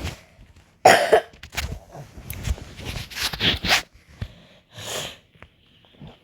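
A person coughing several times close to the microphone: a run of short, breathy coughs with gaps between them.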